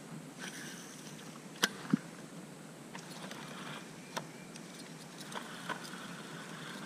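A few knocks and clicks of gear being handled in a small boat: two sharp knocks in quick succession about two seconds in, the second a duller thud, then a few lighter clicks later on, over faint outdoor background.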